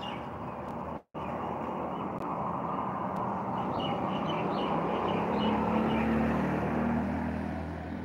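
A motor vehicle passing on the road: a steady engine-and-tyre noise that swells to its loudest about six seconds in, with a low engine hum, then eases off. Birds chirp faintly over it, and the sound cuts out for a moment about a second in.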